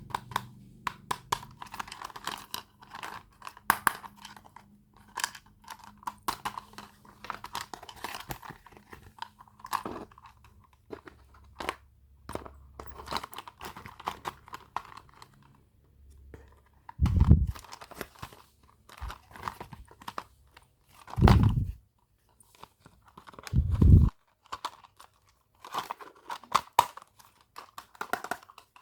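Plastic toy packaging being crinkled and torn open close to the microphone, a busy run of small crackles and clicks. Three louder, deeper bumps come in the second half.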